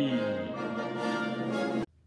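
Orchestral music with brass, holding a chord that cuts off abruptly near the end.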